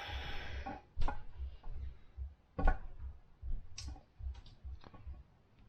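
Camshaft being slid into a Ford 429 big-block's cam bearings: a brief metal scrape, then a series of separate sharp metallic clicks and knocks, about one a second, as the cam lobes and journals touch the bearings.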